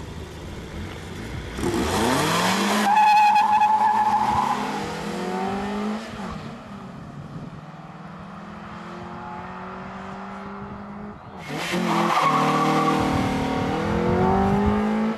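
Honda cars launching hard about two seconds in, with tyres squealing and engines revving and rising in pitch through the gears as they pull away into the distance. Near the end a car comes back close through a turn, engine revving and tyres squealing again.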